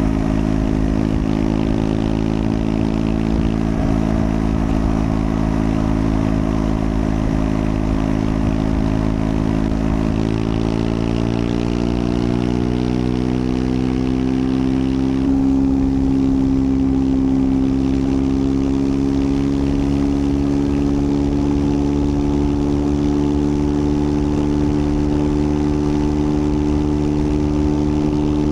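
Triumph Scrambler 400 X's single-cylinder engine running under way at a steady speed. About ten seconds in its pitch rises as the bike accelerates, then it holds steady at the higher speed.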